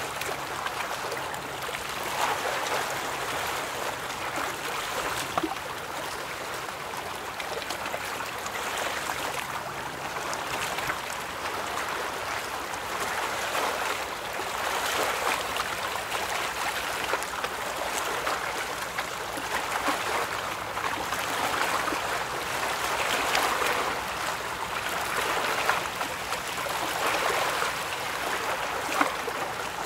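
River water rushing and splashing in the wash of passing vessels, swelling and easing every few seconds, with a faint low engine hum in the first half.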